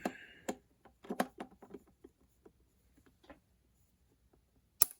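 Small clicks and taps of a Phillips screwdriver working a screw out of a plastic radio-transmitter case. They cluster in the first two seconds, then come sparsely, with one sharp click near the end.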